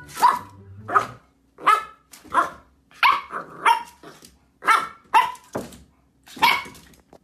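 A dog barking over and over, about nine short, sharp barks at uneven gaps of half a second to a second.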